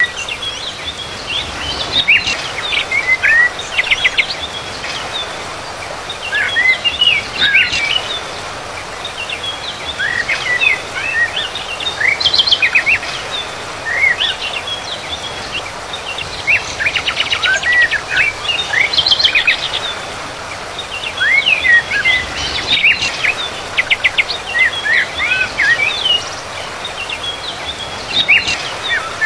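Small songbirds chirping and trilling in clusters of quick high notes with short lulls between, over a steady background hiss.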